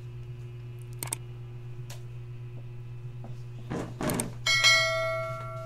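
Subscribe-button animation sound effects: two light mouse clicks, a swish, then a bell chime that rings out and fades near the end, over a steady low hum.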